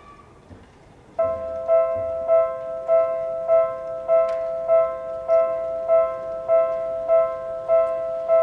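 A Japanese railroad crossing's electronic warning bell starts up suddenly about a second in. Its two-note chime is struck over and over at a steady pace of just under two strikes a second, the crossing signal going off to warn of an approaching train.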